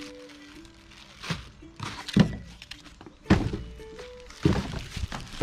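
Cardboard boxes and packaged bottles being handled on a table: four dull thuds and knocks about a second apart, the loudest near the middle. Soft background music plays under them.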